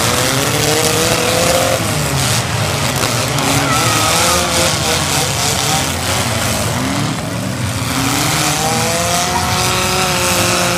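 Four-cylinder demolition derby cars running and revving hard, their engine pitch rising as they accelerate near the start and again near the end, over a steady din of engines.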